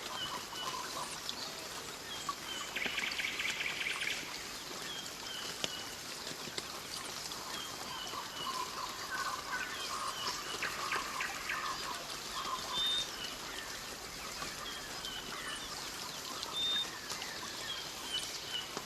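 Rainforest ambience: many birds calling over a steady hiss of insects or running water, with a rapid pulsed trill about three seconds in and a cluster of calls near the middle.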